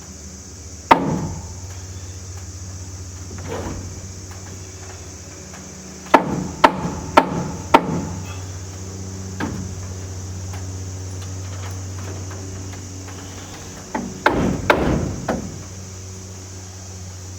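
Hammer blows driving nails into wooden framing: a single blow about a second in, a run of four quick, even blows a few seconds later, and another flurry near the end. A steady low hum runs underneath.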